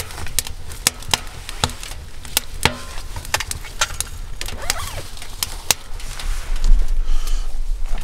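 Irregular sharp crackles and pops, about two or three a second, from firewood burning in a small metal tent stove. About six seconds in they give way to a low rumble of the camera being handled and brushed against fabric.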